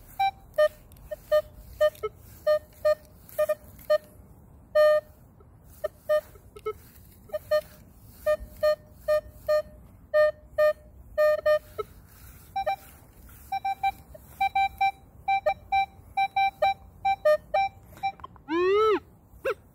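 Minelab Equinox 800 metal detector sounding short target beeps as its coil is swept back and forth over a buried object, mostly in pairs about twice a second. This is a good, repeatable signal reading around 19 to 23 on the display. After about twelve seconds the beeps sit a little higher in pitch, and near the end a longer tone curves upward.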